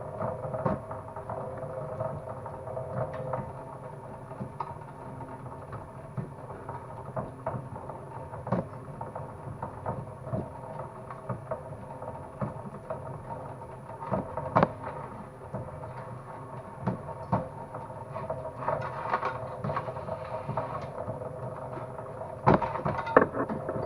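Homemade motor-driven cable stripping machine running with a steady hum, stranded installation cable being pulled through its knives with irregular clicks and knocks, the loudest near the end.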